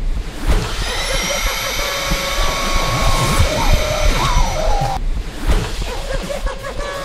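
A vacuum cleaner motor whirs up, its whine rising during the first second and then holding steady, mixed under a high-pitched Minion voice line. The vacuum cuts off suddenly about five seconds in, and the Minion voice line repeats over a different sound effect.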